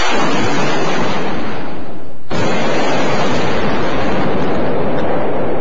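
Missile launches: a loud rushing roar that fades away, then a second launch breaks in suddenly about two seconds in and slowly dies down.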